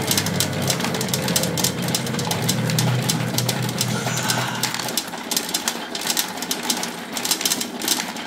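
Pachinko machine with its small steel balls clattering through the playfield, a dense rapid rattle of small clicks. A low steady hum from the machine underneath stops about five seconds in.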